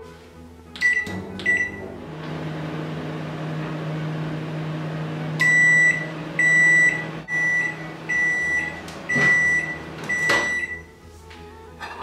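Samsung microwave oven: two short keypad beeps as it is set, then the steady hum of the oven running, then six beeps about a second apart signalling that the cooking cycle has finished.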